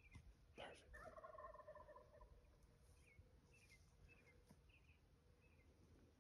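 Faint, distant gobble of a Merriam's wild turkey tom, a warbling call lasting just over a second, starting about a second in right after a brief sharp noise. Several small high chirps follow.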